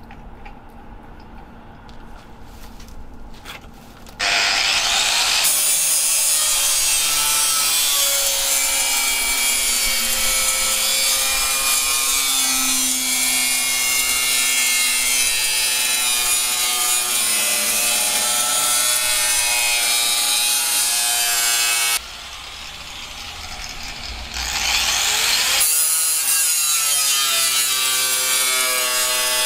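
Angle grinder with a cutting disc spinning up about four seconds in and cutting through aluminium sheet, a loud steady grinding hiss with whining tones that waver in pitch. It stops abruptly about two-thirds of the way through, spins up again a couple of seconds later and carries on cutting.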